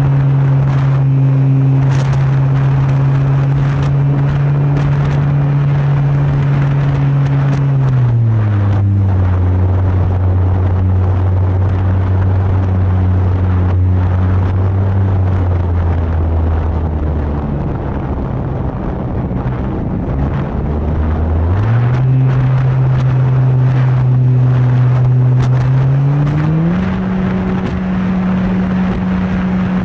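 Radio-controlled PC-21 model plane's motor running steadily. It throttles down about a third of the way in and drops lower just past halfway, then throttles back up about three-quarters through and higher again near the end.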